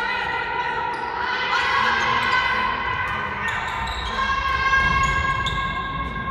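A handball bouncing and striking the sports hall floor, with scattered sharp thuds echoing in the hall. Underneath is a steady high-pitched whine with overtones.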